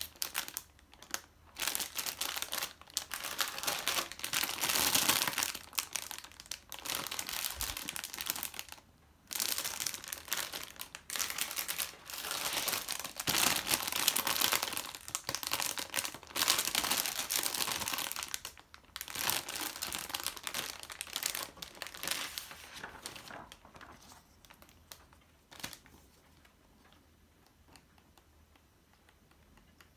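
Clear plastic bags of plastic model-kit runners crinkling as they are handled, in irregular bursts with short pauses. In the last few seconds the handling grows faint.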